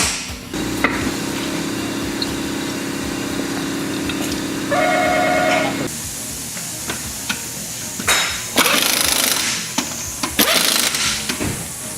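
A pneumatic impact wrench running in a steady rapid rattle for about five seconds, followed by two shorter noisy bursts later on.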